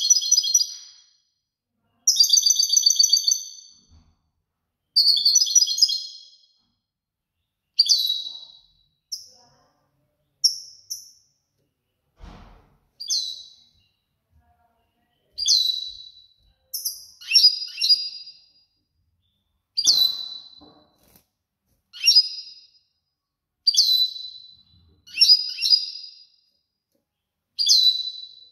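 European goldfinch singing in short, high chirping phrases, one every second or two, with longer buzzy trills in the first few seconds.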